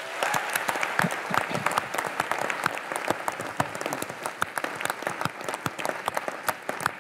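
Large audience in an auditorium applauding: a dense patter of many hands clapping that starts at once and eases slightly toward the end.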